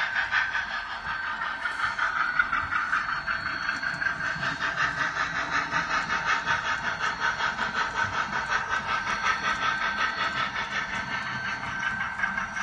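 Sound-equipped model steam locomotive running steadily, its speaker giving a regular hissing chuff about four times a second.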